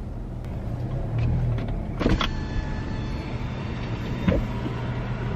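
Car's electric power window being lowered: a click, a steady motor whine for about two seconds, and a knock as it stops, over the low hum of the idling engine.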